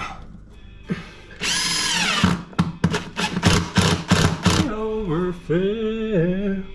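Cordless drill driving a screw to fasten a metal electrical box to a wooden ceiling beam: a short run up to speed, then a string of quick trigger pulses, then a steadier run whose pitch dips twice as the motor slows under load.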